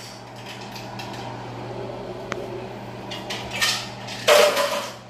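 A glass-and-steel pot lid clattering against a cooking pot as it is handled and lifted, loudest near the end with a brief ringing note. A single light click comes a couple of seconds in, over a steady low hum.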